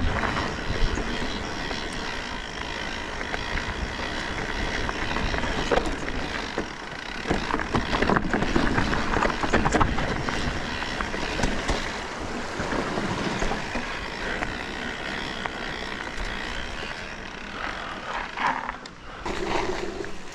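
Mountain bike riding down a rough trail: tyres rolling over dirt and rocks, and the bike rattling and knocking over bumps. Wind rumbles on the camera microphone throughout.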